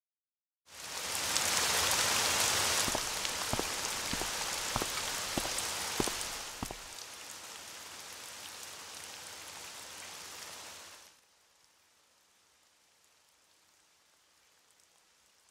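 Steady rain falling, with a few sharp drip-like taps in the first half. It then eases to a softer patter about 7 seconds in and stops about 11 seconds in.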